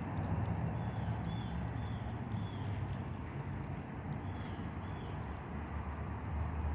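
Outdoor ambience: a steady low rumble, with faint short high chirps from a small bird coming about twice a second, in two runs.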